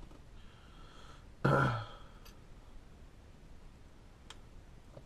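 A man's short, voiced sigh of effort about a second and a half in, with a few faint clicks afterwards.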